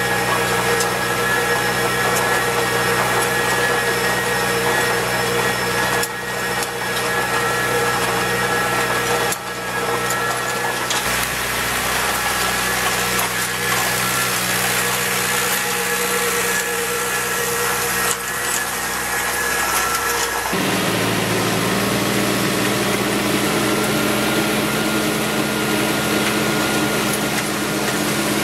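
Tractor engine running steadily while pulling a bean knife cutter. About two-thirds of the way through, its note changes to a different steady pitch.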